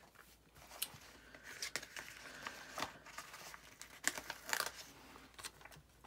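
Paper sticker sheets being handled off to the side: light rustling and crinkling with scattered small clicks and taps.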